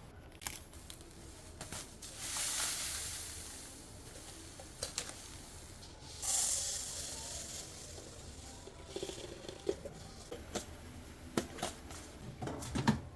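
Dry food poured from a package into a storage container: two hissing pours, each fading out, about two seconds in and again about six seconds in, with light clicks and knocks of the containers being handled.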